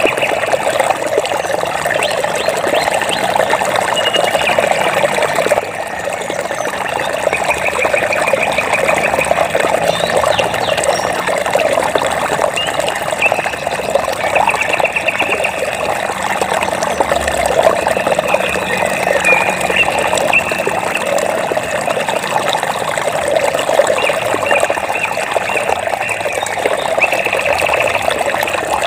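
Water flowing and splashing steadily, as of a stream. Short high trilling calls, each about a second long, come again every few seconds over it.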